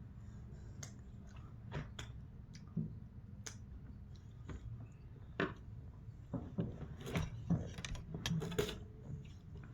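Close-up eating sounds: chewing, with scattered small clicks and taps that come thicker near the end.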